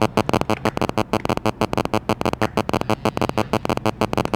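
Background music with a quick, even beat.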